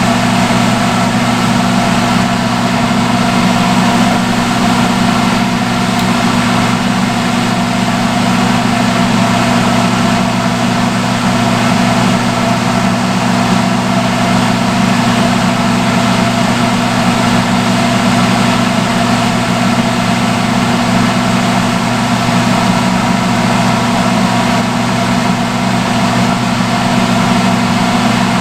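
Salon hood hair dryer running steadily: a constant rush of blown air over a low, even motor hum.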